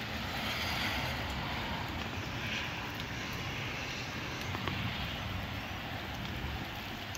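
Gusty wind blowing with rain, a stronger gust swelling in the first couple of seconds, with a few faint raindrop ticks.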